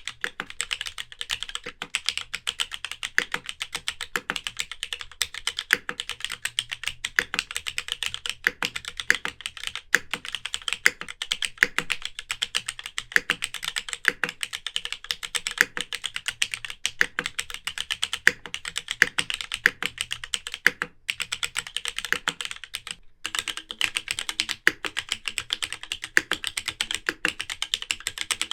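Typing on a Hippo TKL custom mechanical keyboard: a steady run of crisp keystrokes, several a second, with two brief pauses a little after twenty seconds in.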